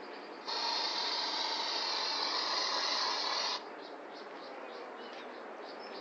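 Aerosol insecticide can sprayed in one steady hiss of about three seconds, starting about half a second in and cutting off sharply.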